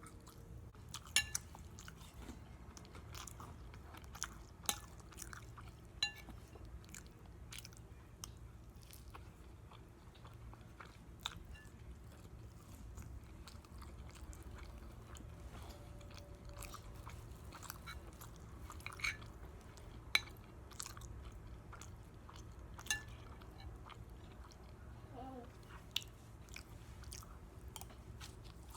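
Close-up eating of pancakes with maple syrup: quiet chewing with scattered sharp clicks every few seconds, over a low steady hum.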